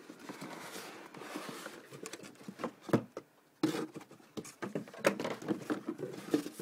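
Cardboard box and packaging being handled: rustling, scraping and a few sharp taps, the loudest about three seconds in.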